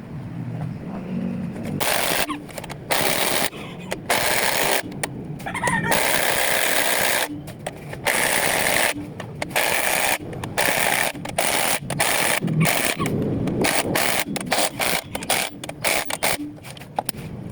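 A loud, rattling machine or power tool worked in repeated bursts, switched on and off abruptly over about fifteen seconds, some bursts short and some lasting a second or more.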